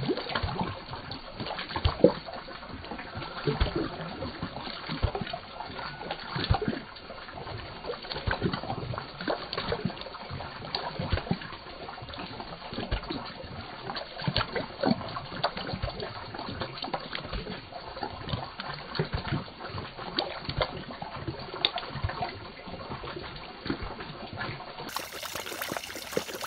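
German Shepherd drinking from a stone water trough, lapping and snapping at the surface with its open mouth: a continuous run of irregular splashes and sloshes, the loudest about two seconds in.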